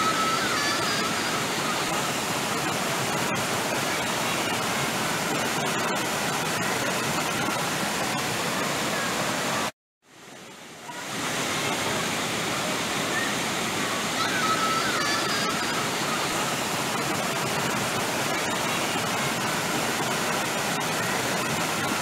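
Mountain stream water rushing over boulders in white-water cascades, a steady unbroken rush. About ten seconds in it cuts out abruptly for a moment and fades back up over about a second.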